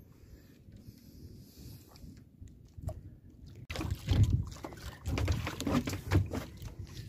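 Water lapping against a small wooden outrigger boat, then from about four seconds in louder irregular splashing and knocking as a handline is hauled in with a fish on it.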